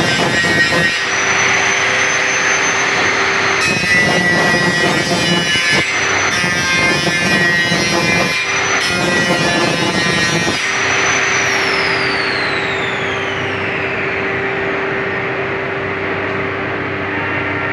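Electric motor of a saw-blade grinding machine running, with a rougher grinding pass about every two and a half seconds, then switched off and winding down in a long falling whine.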